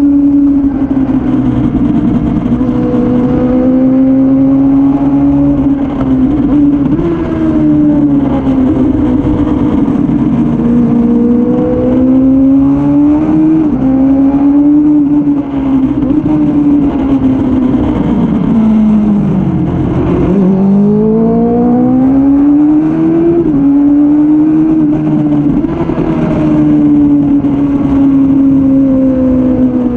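Suzuki Bandit 600's inline-four engine running hard on track: its pitch climbs under acceleration and drops sharply at each upshift, several times over. About two-thirds of the way through it falls away low as the bike slows, then climbs again.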